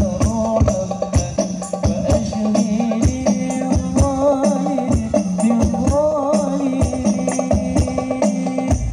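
Live sholawat music through a large outdoor sound system: voices chanting Islamic devotional verses over a steady frame-drum beat with tambourine-like jingles.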